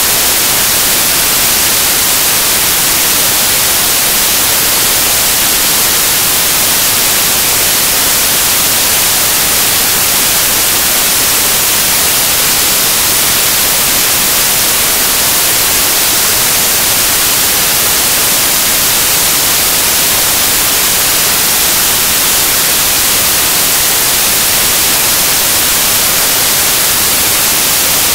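Loud, steady static hiss, strongest in the treble, with nothing else heard through it: a broken or noise-filled audio track rather than any sound in the room.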